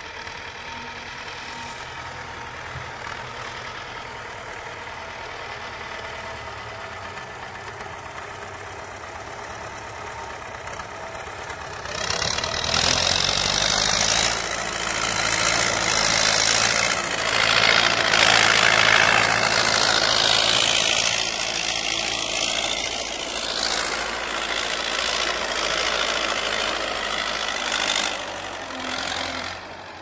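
Belarus MTZ-50 tractor's four-cylinder diesel engine running steadily under load while pulling a plough. It is moderate at first, turns much louder about twelve seconds in as the tractor comes close, is loudest a little past halfway, then eases as the tractor moves away.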